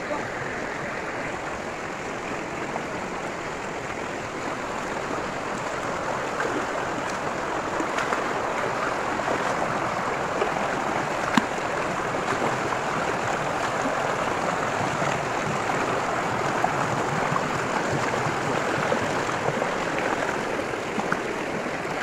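Shallow rocky river rushing and splashing over stones, a steady rush that swells slightly partway through. One sharp click stands out about eleven seconds in.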